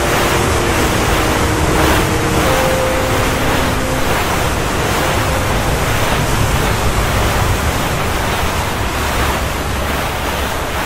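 Steady, loud rush of wind and breaking sea as a racing monohull yacht's hull drives through rough waves at speed, throwing spray.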